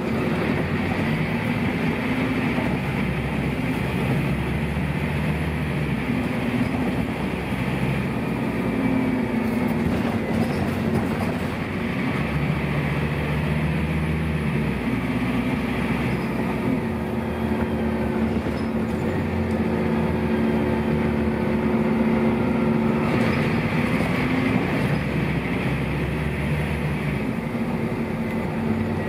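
Scania DC09 9.0-litre five-cylinder diesel engine of a Scania N230UB bus running under load, with a ZF Ecomat automatic gearbox. The engine note rises and falls several times as the bus moves along and changes gear.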